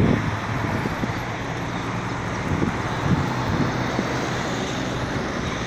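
Steady outdoor hiss and hum of distant city traffic, with some wind on the microphone.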